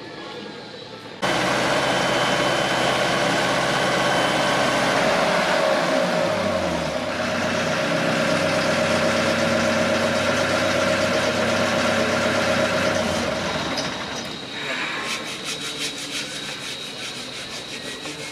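Boatyard travel lift's engine running steadily, starting abruptly about a second in, dropping in pitch around seven seconds in, and easing off about fourteen seconds in.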